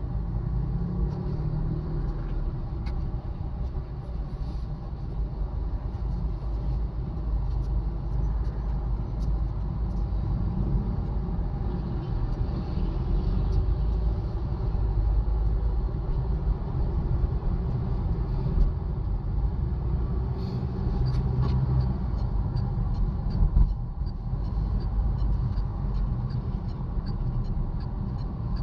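Heavy road traffic: a steady low rumble of vehicle engines and tyres, with a brief louder bump about three-quarters of the way through.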